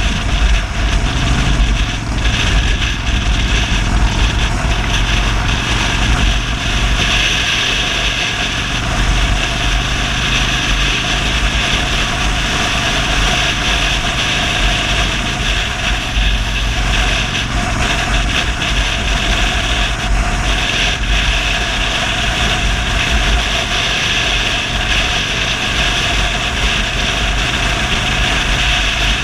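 Cruiser motorcycle's engine running steadily while riding at road speed, with wind rushing over the microphone.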